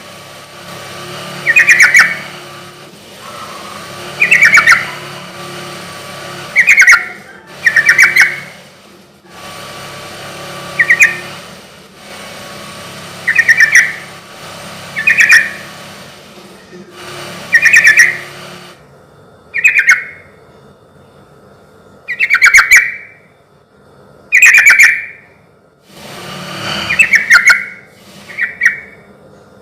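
Yellow-vented bulbul (trucukan) singing: short loud phrases, one every second or two, played as a lure recording to draw other trucuk into calling.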